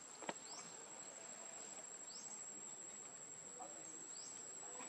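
Steady high-pitched insect drone. A short rising chirp repeats three times, about two seconds apart, and there is one sharp click about a third of a second in.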